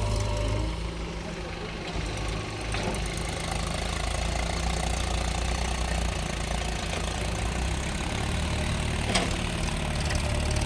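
Heavy diesel engine running steadily at low revs, with a short knock about three seconds in and another about nine seconds in.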